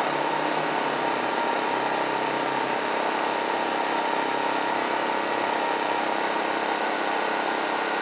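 Brand-new Predator 2500-watt inverter generator running steadily, a really quiet, even engine hum with a steady whine on top.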